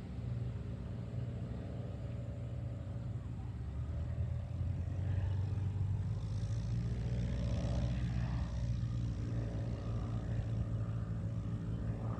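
Cessna 182 Skylane's single piston engine and propeller droning steadily as the plane flies away after takeoff, a little louder from about five seconds in.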